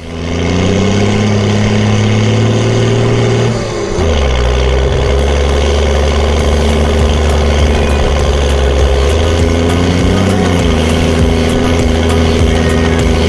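Tractor's diesel engine working steadily. Its revs drop sharply about four seconds in, then hold at a lower steady pitch, with a brief rise and fall around ten seconds.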